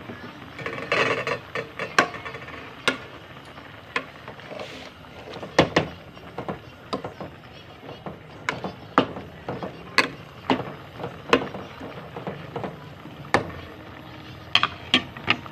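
Irregular sharp clicks and knocks of a steel spoon stirring and tapping in a metal cooking pot of chopped vegetables and greens, with the open cooking fire under the pot crackling.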